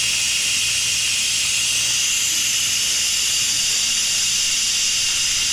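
Electric pressure cooker venting steam through its valve: a loud, steady hiss.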